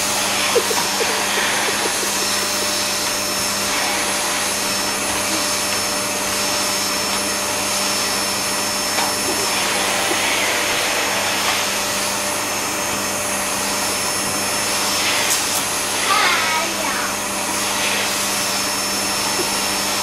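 Household vacuum cleaner running steadily, its motor giving a constant hum with a steady whine.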